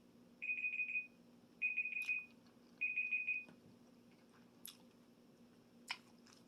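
Timer alarm beeping in groups of quick high beeps, about one group a second, stopping about three and a half seconds in, followed by a few faint clicks. The alarm marks the end of the six-minute time limit.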